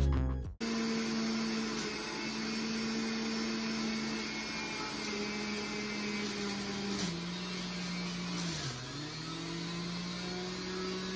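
Electric centrifugal juicer's motor running steadily after a snatch of music cuts off. Its pitch sags about seven seconds in and dips again near nine seconds before picking up, as beets are pushed down the feed chute against the spinning blade.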